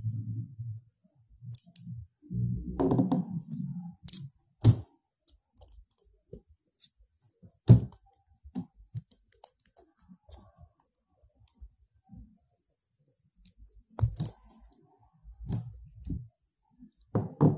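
Irregular clicks, taps and dull knocks of small metal parts being handled: the blade of a Kemei T-blade hair trimmer being fitted onto its head and screwed down with a screwdriver. No motor runs.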